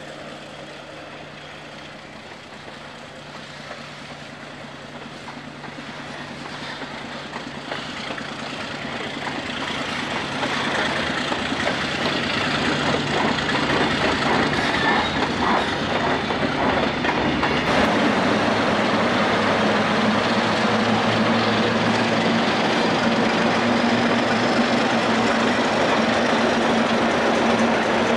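Baldwin diesel switcher locomotive running under load as it moves a freight train, with railcar wheels clattering on the rails. The sound grows louder over the first ten seconds or so. From about 18 seconds in it settles into a steady engine drone.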